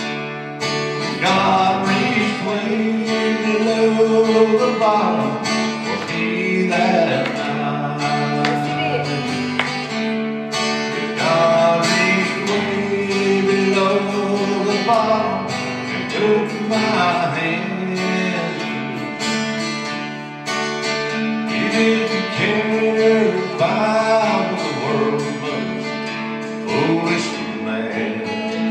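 A song: a singing voice over strummed acoustic guitar.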